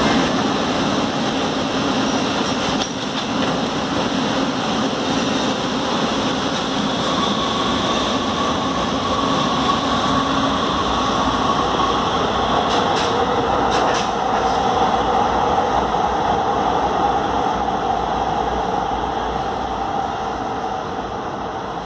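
A MUNI light-rail train pulls out of the underground platform, running with a steady rumble and a whine. There are a couple of short clicks past the middle, and the sound fades slightly near the end as the train leaves.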